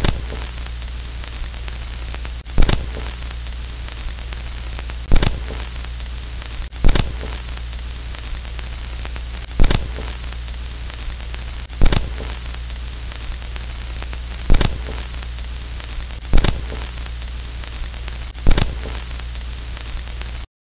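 Old-film crackle sound effect: a steady hiss of static over a low hum, broken by a sharp pop about every two seconds.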